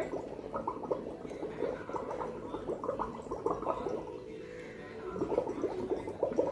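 Exhaled breath blown through a drinking straw into a glass of limewater, bubbling rapidly. The bubbling eases for a moment about four seconds in, then starts again. This is the test for carbon dioxide in exhaled air.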